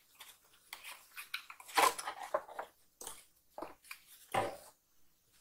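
Cardboard rustling and scraping as a boxed Funko Pop figure is handled inside an open cardboard sorter box. It comes in irregular bursts, loudest about two seconds in and again a couple of seconds later.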